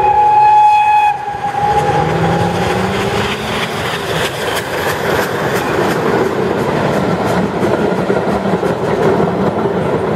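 FS 685 class steam locomotive sounding its whistle, a held tone that cuts off about a second in. The locomotive then passes close by, with a steady loud rush of exhaust and the clatter of the train's wheels on the rails.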